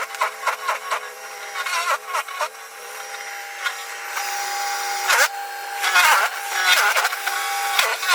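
Snow Joe ION100V battery-powered snow blower running, a steady motor whine with uneven surges of noise over it, loudest about five to six seconds in.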